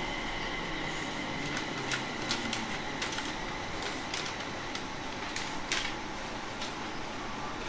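Inside a JR East 701 series electric train: a steady, fairly quiet cabin hum with a faint high tone that fades out in the first couple of seconds, and a few light clicks and knocks.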